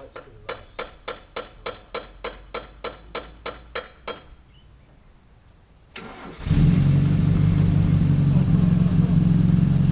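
Old Toyota Hilux pickup being started: first a quick run of sharp clicks, about three a second, for some four seconds, then a short pause. About six seconds in, the engine catches and runs steadily and loudly.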